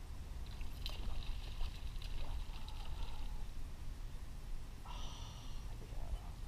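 Low steady rumble of a small boat under way on a lake, with a higher whirring twice: for about three seconds from half a second in, and briefly about five seconds in.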